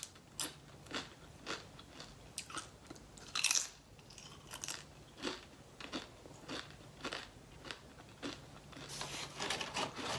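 Tortilla chips bitten and chewed with crisp crunches, a louder bite about three and a half seconds in and faster crunching near the end.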